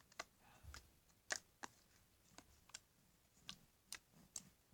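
Slime being pressed and played with, giving sparse sharp clicks and pops at an uneven pace, roughly two a second.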